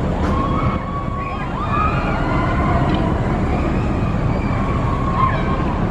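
A steel floorless roller coaster train runs on its track with a steady low rumble, mixed with the engine of a passing bus. Riders' screams rise and fall over it several times.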